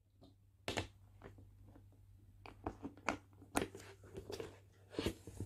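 Handling of a black leather handbag: it is set down on a wooden table with a knock, then its metal turn-lock clasp and leather flaps give a run of clicks, knocks and rustles as the bag is opened.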